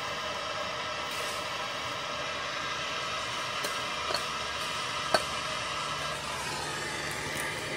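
Handheld gas torch burning with a steady hiss, with two light metallic clicks about four and five seconds in.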